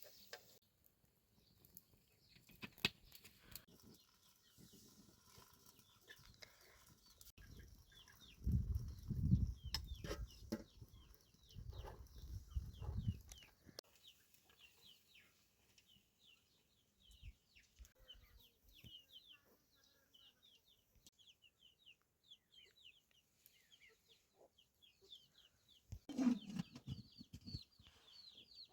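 Chickens, with a rapid run of short, high peeping calls that grows denser over the second half. A low rumbling noise comes in the middle and a short low thump near the end.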